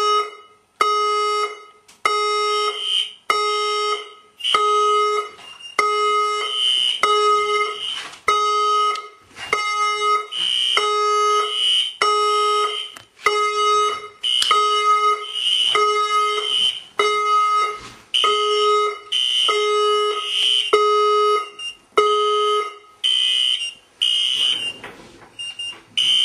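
Fire alarm sounders going off after a call point is activated with a test key: a loud pulsing alarm tone at roughly one and a half pulses a second, joined about two seconds in by a higher-pitched alarm tone. The pulsing tone stops near the end while the higher tone keeps sounding.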